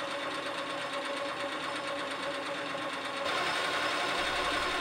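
Sieg SC4 bench lathe running steadily with a held whine and hiss. A little over three seconds in the sound grows louder and brighter as the tool turns the edge of the knurled steel bar clean.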